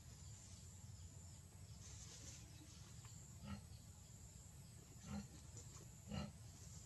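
Near silence with a steady low outdoor rumble, broken by three short, faint animal grunts in the second half.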